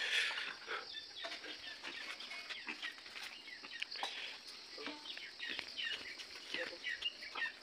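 Birds chirping in many short, quick calls scattered throughout, with a brief rustle right at the start.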